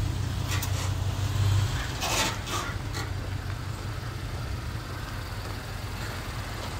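A motor vehicle's low engine rumble that drops away under two seconds in, a few short harsh noises between two and three seconds in, then a steady low background of outdoor noise.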